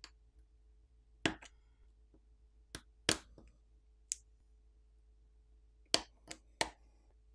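Flex-cable connectors on a smartphone's main board being popped off with a plastic pry pick: about nine short, sharp clicks at uneven intervals, the loudest about a second in, about three seconds in and about six seconds in.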